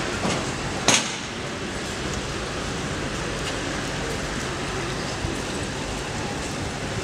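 Steady city street noise from road traffic, with one sharp knock about a second in.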